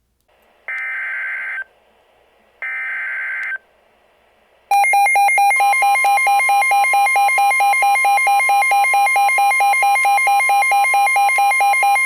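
NOAA Weather Radio emergency alert: two short buzzy digital data bursts (the SAME header), then about five seconds in a loud, rapid pulsing alarm beep starts, with a steady alert tone joining under it. It signals a new warning about to be read.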